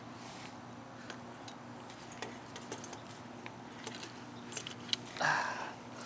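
Light metallic clicks and clinks of a chain lock's links and a pair of compact bolt cutters being worked on the chain. There is a sharper click just before five seconds and a short burst of noise just after it.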